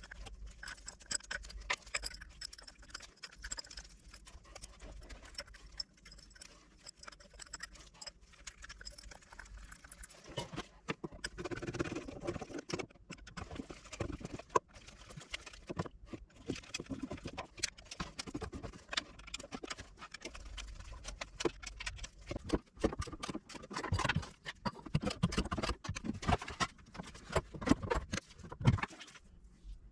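Irregular clicks, taps and clinks of hand tools and metal bolts while bolting a differential side cover onto the car's transmission, busier in the second half.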